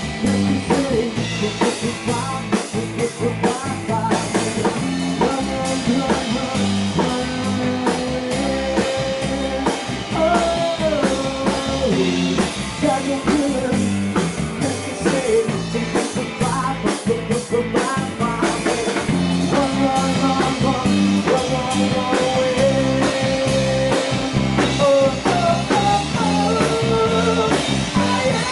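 Live rock band playing: a male singer over an electric guitar, electric bass and drum kit, all amplified.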